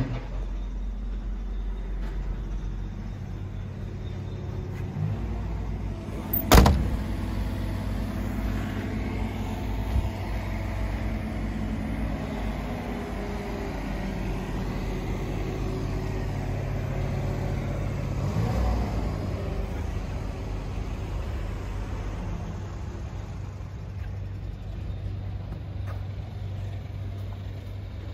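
Excavator diesel engine running at a steady idle. About six and a half seconds in, the cab door slams shut once, loudly, and a lighter knock follows a few seconds later.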